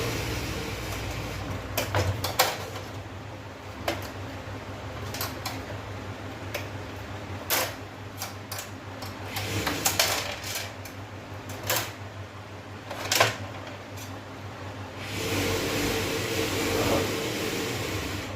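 Irregular sharp clicks, taps and knocks of plastic and metal parts being handled as LED backlight strips are pulled off the inside of an opened LED TV. A steady background noise swells over the last few seconds.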